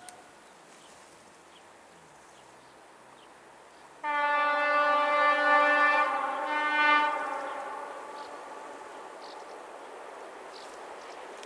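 A train that is not yet in sight sounds its horn about four seconds in: two blasts, a long one and then a shorter one, lasting about three seconds in all. After that comes the steadily growing sound of the train approaching.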